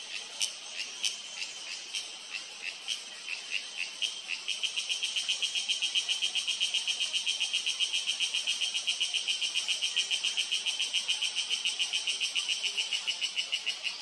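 Cicada calling: a pulsed, high buzz, at first a couple of separate pulses a second, then from about four seconds in a fast, louder, even train of pulses that eases off near the end.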